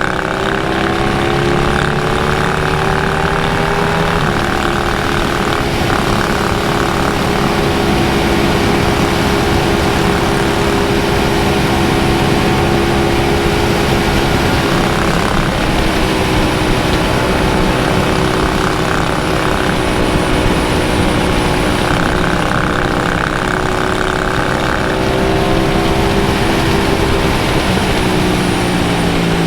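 Motorcycle engine running at a steady cruising speed under a continuous rush of wind noise, its note shifting slightly about four seconds in and again near the end.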